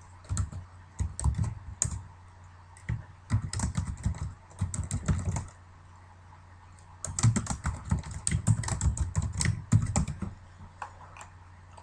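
Typing on a computer keyboard: runs of quick keystrokes in three bursts, with a short pause in the middle.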